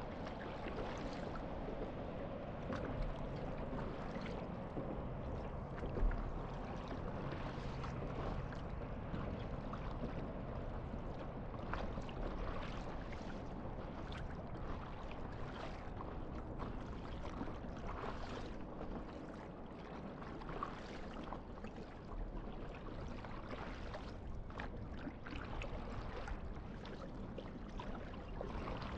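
Water lapping and splashing against a stand-up paddleboard as it is paddled across calm water, with many small irregular splashes and one louder slap about six seconds in.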